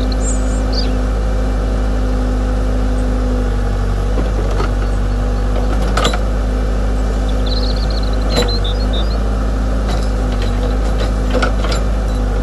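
Steady electric hum of a remote-controlled model excavator's motor and hydraulic pump, with a few sharp clicks and knocks along the way.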